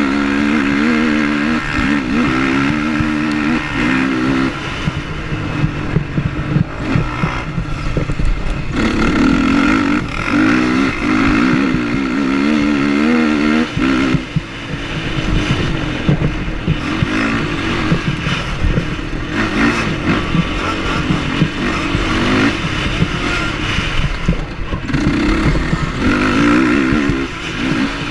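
Sport quad (ATV) engine at racing pace, revving up and dropping back again and again with gear changes and throttle lifts, with wind rush and the knocks of the quad over the rough dirt track.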